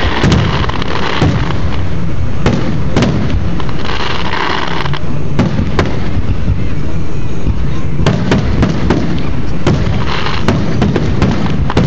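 A fireworks grand finale: a rapid, irregular string of sharp bangs over a continuous low booming rumble. Stretches of higher hiss rise up a few times.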